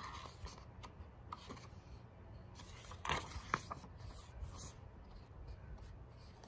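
Pages of a picture book being handled and turned: soft paper rustles, with the loudest rustle and a crisp crackle of the page about three seconds in.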